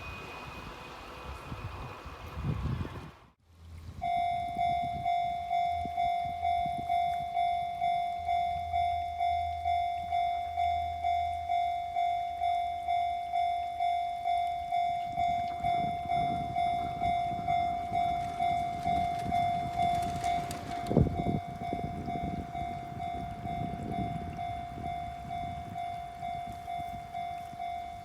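Japanese level-crossing warning bell ringing in a steady repeating ding, about two strokes a second. A Kintetsu Minami-Osaka Line train rumbles and clatters past under it, loudest about two-thirds of the way through. Near the start, train rumble without the bell cuts off abruptly at an edit.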